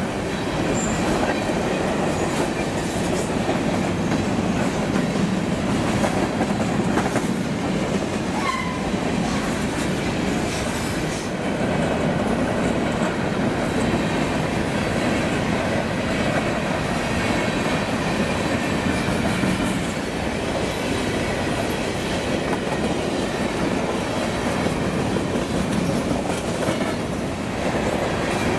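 Covered hopper cars of a BNSF freight train rolling past close by: a steady rumble with the clack of wheels over rail joints.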